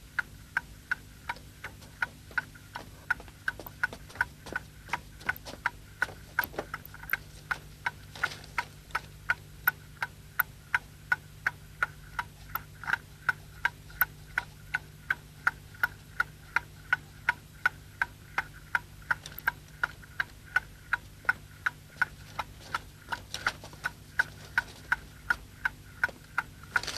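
Pendulum wall clock ticking steadily, about two ticks a second.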